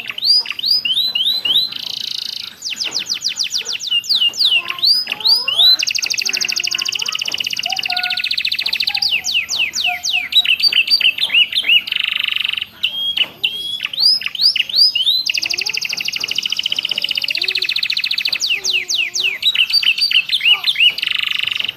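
Domestic canary singing continuously, its song filled with copied prinia phrases: runs of quick downward-sweeping whistles alternating with long, fast trills lasting a few seconds each.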